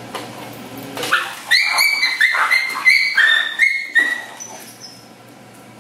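Puppy yelping in pain in a quick string of high-pitched yelps lasting about three seconds, starting about a second in. The puppy has bumped its leg, probably in a slip, and the trainer takes the yelping for an overreaction to a minor hurt.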